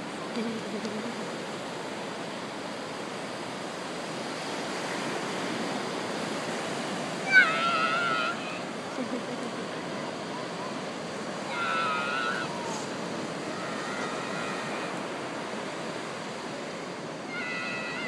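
Ocean surf washing steadily on the beach, with short high-pitched cries about seven seconds in, again around twelve and fourteen seconds, and near the end.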